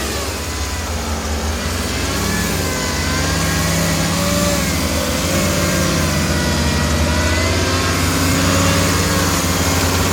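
Off-road Jeep's engine running under load, its revs rising and falling.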